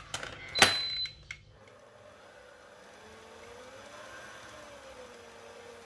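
Stand mixer: a sharp metallic clunk with a short ring about half a second in, as the tilt head is brought down onto the steel bowl, then the mixer running on a low speed, quiet, with a faint whine that rises and falls.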